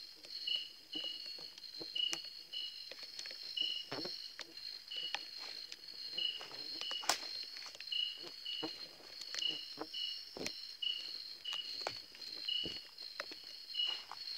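Night insects calling steadily: a continuous high trill over a lower chirp repeated about twice a second. Scattered soft clicks and knocks sound throughout.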